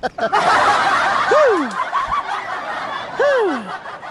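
People laughing and chattering. Twice, about a second and a half in and again near the end, a call slides down in pitch like a falling hoot.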